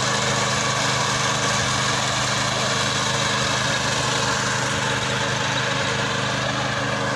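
Small petrol engine of a walk-behind fodder reaper running steadily at an even speed as the machine cuts grass.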